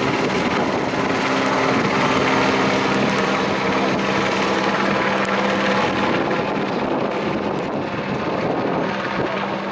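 Airbus AS350 Ecureuil single-engine turbine helicopter running close by, with steady rotor and turbine noise and a constant low hum throughout.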